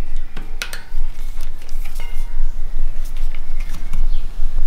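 Scattered light metallic clicks and clinks from fitting a kick scooter's front wheel into the fork, the axle seating in the dropouts as the disc brake rotor slides into the caliper, with a sharper click near the end.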